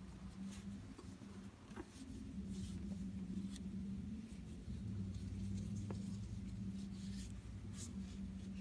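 Faint rustling and scraping of a cloth restraint strap being pulled and tied into a slip knot on an exam table's frame, with scattered small ticks of handling, over a low steady hum.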